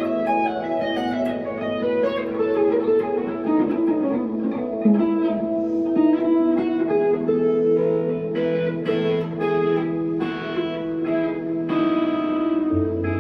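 1963 Fender Telecaster electric guitar played through an amp with delay and reverb: ringing single notes and chords over long held notes, with a note sliding down in pitch about four seconds in.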